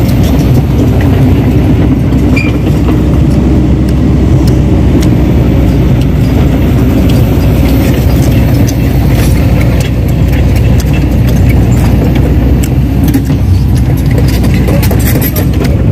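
Heavy diesel machinery engine, such as a site excavator's, running steadily, with small metallic clicks and clinks over it.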